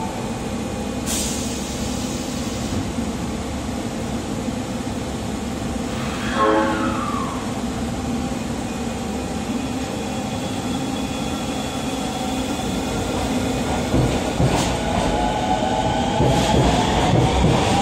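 Osaka Metro Midosuji Line subway train standing at the platform humming, then pulling away. A rising motor whine builds from about ten seconds in as it accelerates, with wheel clicks and louder running noise near the end. There is a sharp click about a second in and a short falling tone about six seconds in.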